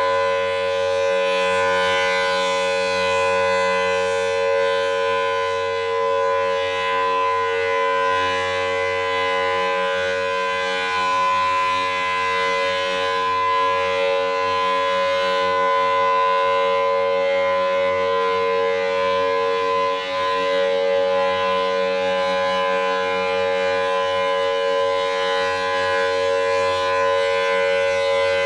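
Federal Signal Thunderbolt 1000T civil defense siren sounding its steady Alert tone during a test. The pitch holds level and unbroken, a loud chord of several tones together.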